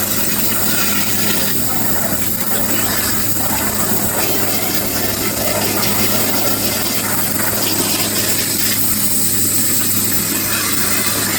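Waterjet cutting machine cutting silicone: a steady, loud high-pressure hiss from the water jet over a low steady hum.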